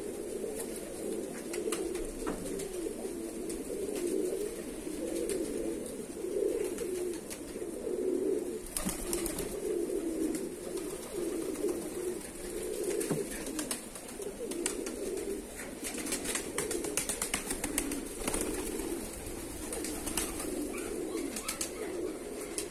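A flock of domestic tumbler pigeons cooing together, a continuous low overlapping burble, with scattered faint clicks from about nine seconds in.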